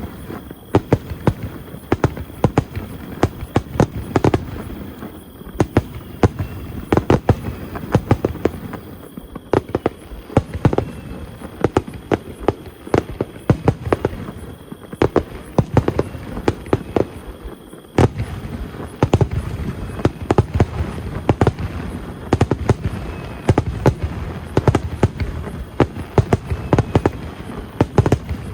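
Fireworks bursting in quick succession at a large display: many sharp bangs and crackles one after another over a continuous low rumble.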